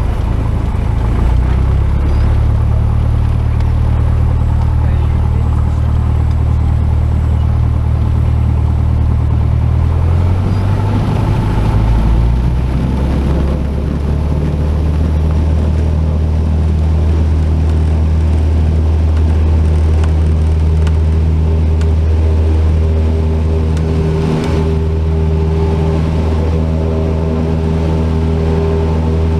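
Cessna 172 piston engine and propeller droning steadily in the cockpit. The pitch shifts about ten to fourteen seconds in, then holds steady again.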